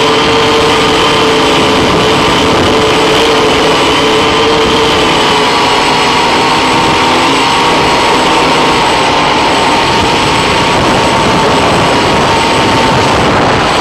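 Octocopter's brushless electric motors and propellers running in flight: a loud, steady whine over a rushing noise, with several held tones that drift slightly in pitch as the throttle changes.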